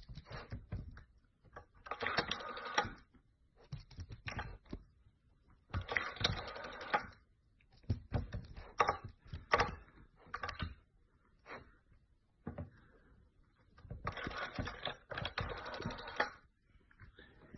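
Rotary telephone dial pushed round by a dog's nose, clicking in quick runs of about a second as it turns and springs back. There are three longer runs with scattered single clicks in between.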